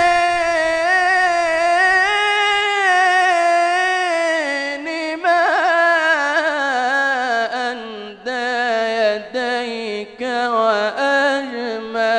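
A young man singing an unaccompanied Islamic devotional chant (inshad) close on a microphone. He holds one long ornamented note for the first few seconds, then sings melismatic runs that slide lower, breaking into shorter phrases with brief breaths from about eight seconds in.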